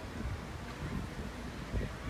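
Wind buffeting a handheld microphone outdoors as a low, uneven rumble, louder for a moment near the end.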